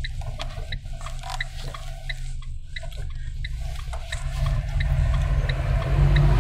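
A car driving, with a steady low road rumble that grows louder near the end. Over it runs a light, regular ticking about three times a second.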